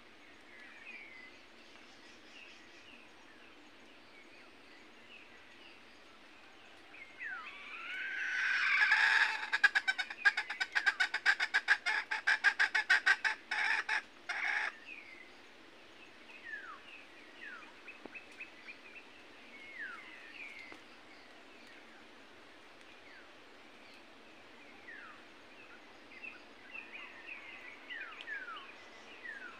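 Red junglefowl giving a loud outburst about seven seconds in. A rising squawk runs into some five seconds of rapid, harsh rattling pulses, which stop abruptly. Faint chirps of small birds come before and after.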